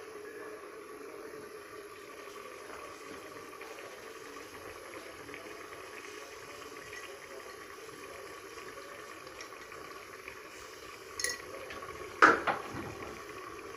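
A pot of liquid boiling steadily on a stove, with a sharp clatter of kitchenware near the end.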